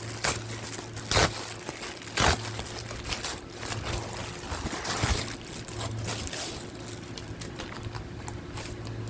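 A package being opened by hand: rustling and crinkling of packaging with sharp clicks about a second and two seconds in, over a steady low hum.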